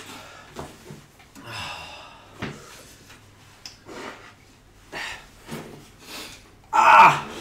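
People breathing hard and sniffing in short, irregular breaths about once a second, sucking air against the burn of very spicy noodles, with one louder voiced breath near the end.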